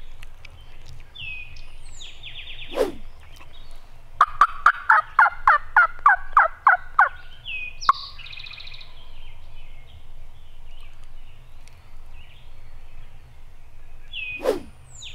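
A Pinhoti Purple Ghost turkey mouth call worked hard: a fast run of about a dozen loud yelps lasting about three seconds. Wild turkey gobblers answer with fainter gobbles before the calling, right after it, and again near the end.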